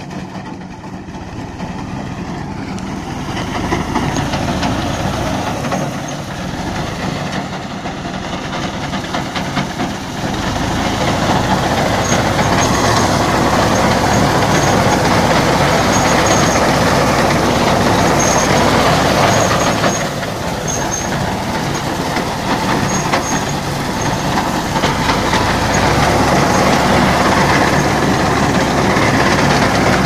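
Tractor with a front-mounted wheat reaper running while cutting wheat: a steady diesel engine under load with the reaper's mechanical clatter, growing louder over the first few seconds and again about ten seconds in as it comes closer.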